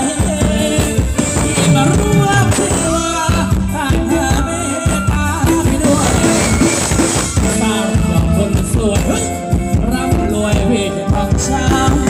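Thai ramwong dance music played by a band, with a steady beat and a singing voice.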